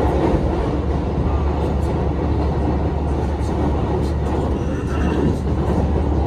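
Running noise inside a Hankyu 2300 series electric train car under way: a steady low rumble of wheels on rails and running gear, with no sudden knocks.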